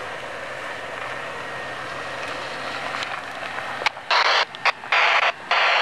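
Off-road vehicle engine running steadily at low revs. About four seconds in come three loud bursts of rushing hiss that start and stop abruptly.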